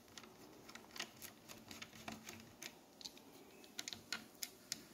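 Faint, irregular clicks and ticks of a screwdriver turning a small screw out of a laptop's plastic bottom case.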